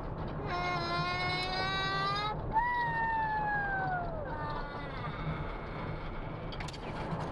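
Steady low road rumble inside a moving car, with loud drawn-out squealing wails on top: one rising over about two seconds, then one falling, then a short one about five seconds in.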